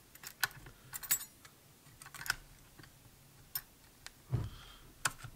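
Scattered small clicks and taps of a saw blade being slid into and seated in the blade clamp of a DeWalt compact reciprocating saw, with a soft low thump about four seconds in.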